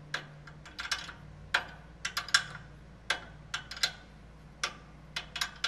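Two wrenches clicking and clinking on a grade C lock nut and its track bar bolt as the nut is run on, in irregular sharp metallic clicks. A steady low hum runs underneath.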